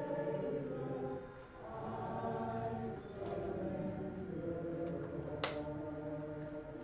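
A congregation singing together, with one sharp hand clap about five and a half seconds in.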